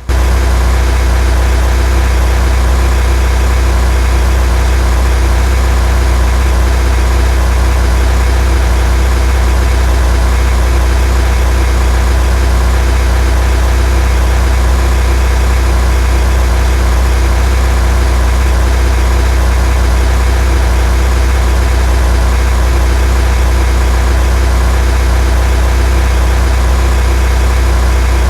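Loud, steady low drone of a vehicle engine, unchanging throughout and starting abruptly.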